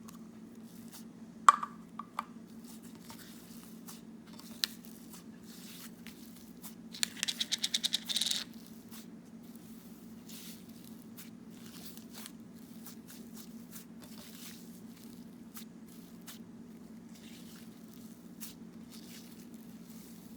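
Slime being squished and stretched by hand: faint sticky crackles, a sharp pop about a second and a half in, and a quick run of clicking pops around seven to eight seconds in, over a steady low hum.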